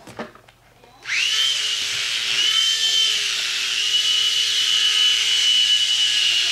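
Picoo Z micro helicopter's small electric rotor motor spinning up about a second in, its whine rising quickly and then holding at a steady high pitch. A couple of light knocks come just before it.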